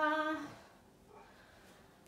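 A woman's voice holding the end of a word on one steady pitch for about half a second, sing-song, then near quiet room tone.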